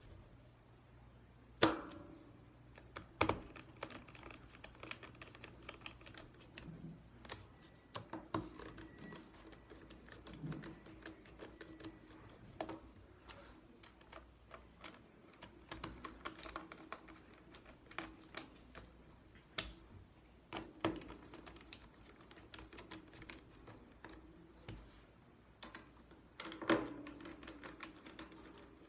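Plastic bottom cover of a Dell 3100 Chromebook being fitted and screwed back on: irregular small clicks and taps, with a few sharper clicks or snaps of the cover going into place.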